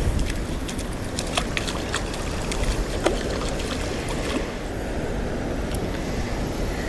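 A hooked fish splashing in shallow water as it is drawn in to the bank and lifted out. Scattered light splashes and clicks sit over a steady low rumble.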